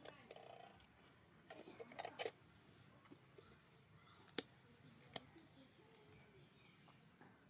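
Quiet handling of a powdered-milk formula tin: the foil seal pressed down by hand and the plastic lid fitted on, giving a few sharp clicks and taps, the loudest cluster about two seconds in and two single clicks later.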